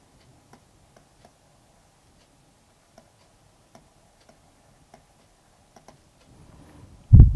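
Faint, irregular clicks of a stylus tapping on a tablet screen during handwriting, then a loud, short low thump near the end.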